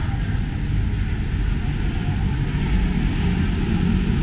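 Steady rumble of city street traffic, engines running with a low hum that grows slightly louder toward the end.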